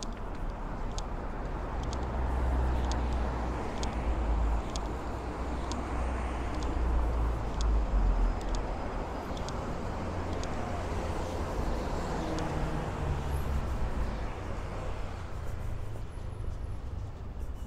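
City street traffic: cars driving past on the road, swelling louder in the middle, with the walker's footsteps ticking steadily on the pavement.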